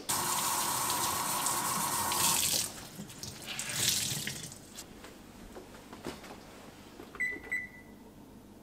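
Kitchen tap running into the sink for about two and a half seconds, then turned off, with a shorter burst of noise about a second later. Near the end, two short electronic beeps from the electric oven's control panel.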